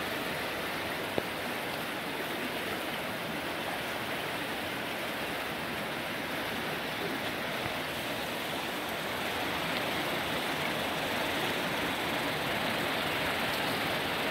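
Greer Spring's outflow rushing over rocks: a steady sound of running water that grows a little louder in the last few seconds, with one faint click about a second in.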